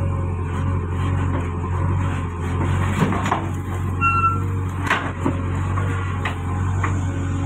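JCB backhoe loader's diesel engine running steadily under load while the backhoe arm swings and the bucket scoops soil, with several sharp knocks and clanks from the bucket and earth. A short high squeak about four seconds in.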